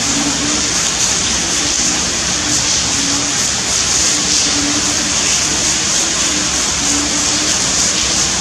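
Heavy torrential rain pouring down, a steady dense hiss.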